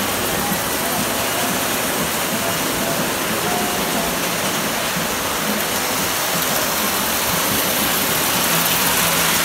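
Toy electric trains running on three-rail metal track: a steady whirring rumble of motors and wheels on the rails.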